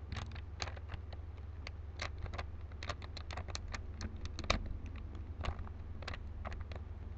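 Rubik's Cube layers being twisted in quick succession: a rapid, irregular run of small plastic clicks and clacks over a steady low hum.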